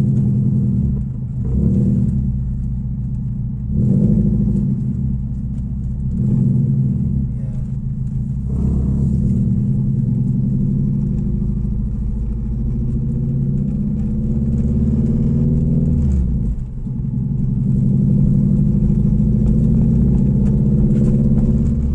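Ford Fiesta engine with unequal-length headers and a 2.5-inch open-pipe exhaust, heard from inside the cabin. It swells in revs several times, then climbs steadily in pitch for a few seconds before dropping off sharply about two-thirds of the way through, then runs on steadily.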